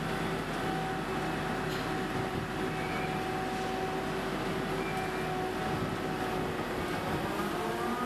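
Sennebogen 880 EQ material handler running as it swings its boom and clamshell grab: a steady machine noise with several held whining tones, and a higher whine coming in near the end.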